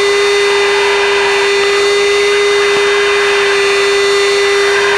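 Steady cockpit noise of a Mirage III jet in flight: an even rushing hiss with a constant mid-pitched electrical hum running through it.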